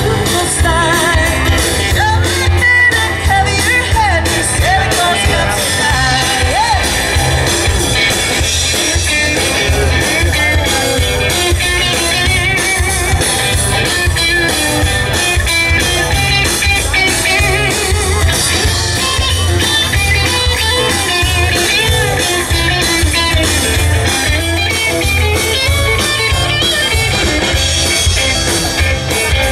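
Live rock-and-roll band playing: electric guitar, bass and drum kit with a steady beat, and a voice singing over it.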